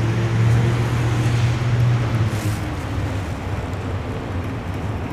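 Canadian Pacific double-stack intermodal freight train's container cars rolling over a railway bridge: a steady rumble with a low hum that is strongest in the first two seconds, then eases off.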